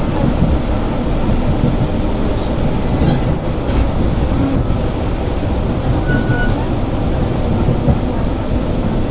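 Passenger train running on the rails, heard from inside the carriage: a steady rumble of the wheels, with a few faint, brief high squeals around the middle.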